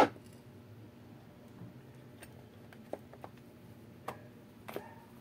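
Plastic jigsaw housing parts being handled and fitted together: one sharp click at the start, then a few light ticks and taps.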